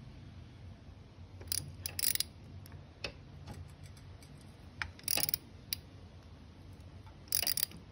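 Ratchet wrench on the crankshaft clicking in about four short bursts, with a few single ticks between, as the CG250 engine is turned over by hand to the next top dead center.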